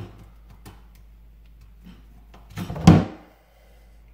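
A plastic sink P-trap knocking against a plastic bucket: a sharp click at the start, a few faint taps, then one loud hollow knock about three seconds in.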